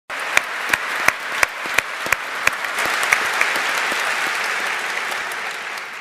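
A large audience applauding, with one nearby clapper standing out in an even beat of about three claps a second. The applause dies down near the end.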